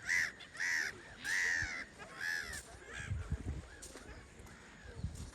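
Seabirds calling, a series of harsh, arched calls: four loud ones in the first two and a half seconds, then fainter calls trailing on.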